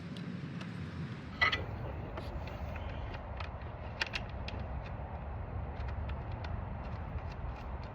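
Chainsaw parts being handled during reassembly: a sharp click about a second and a half in, a smaller one near four seconds, and scattered light ticks, over a steady low rumble.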